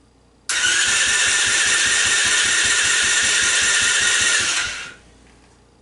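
ATV engine being cranked over by its starter motor for a compression test, without firing: a steady whine over an even, rapid pulsing for about four seconds, starting abruptly and winding down. The test reads about 80 psi, low enough that the owner thinks the piston rings need replacing.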